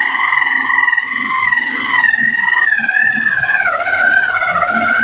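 Electric bullet mixer / food processor motor running at speed while kneading chapati dough, a steady high-pitched whine. The pitch sags a little over the last couple of seconds.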